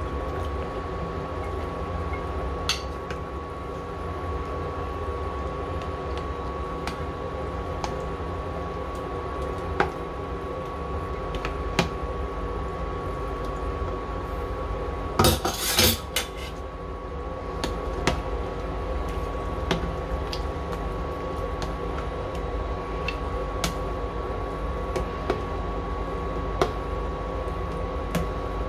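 Plastic ladle stirring corn flour slurry into a pork soup in a steel pot, knocking against the pot now and then, with a louder clatter of several knocks about fifteen seconds in. Under it runs the steady hum and whine of the induction cooktop.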